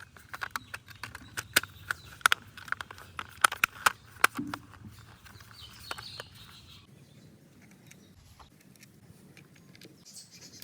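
Plastic toy vehicle parts clicking and tapping as they are handled and fitted together: a quick, irregular run of sharp clicks over the first half, then quieter handling with a brief rustle.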